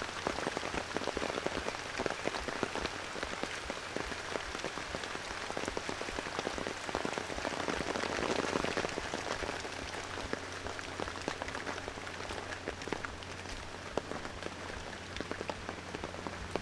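Rain falling on leaves and pavement: a dense patter of drops with many sharp close drips, swelling louder about halfway through and easing a little after. A low steady hum runs underneath.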